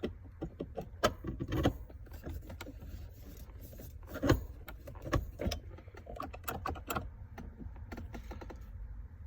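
Irregular clicks, taps and rattles of a 3D-printed shifter handle being pushed and worked onto a Camaro's automatic shift lever, with one louder knock about four seconds in.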